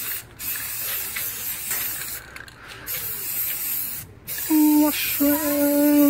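Aerosol spray-paint can hissing in several bursts, with short breaks, as paint is sprayed onto a garage door. Near the end, a voice calls out loudly in two held notes.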